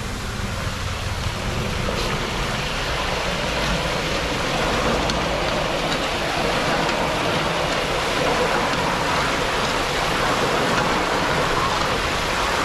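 Chips deep-frying in hot oil: a steady sizzling hiss with a few scattered small crackles, over a low rumble.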